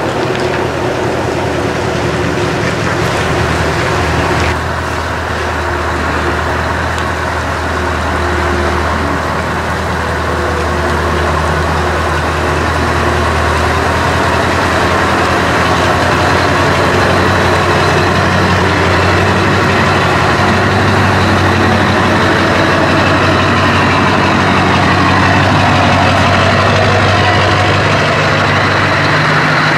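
Scania R500 V8 truck engine with an open, unsilenced exhaust pipe idling with a steady deep rumble, growing gradually louder.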